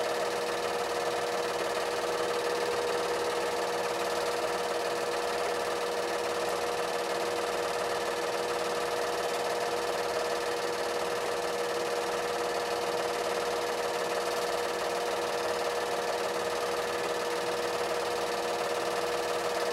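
8mm film projector running: a steady mechanical whirr with a strong, even hum that holds unchanged throughout.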